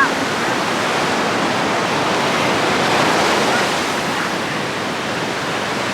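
Ocean surf washing onto the beach: a steady, even rush of breaking waves.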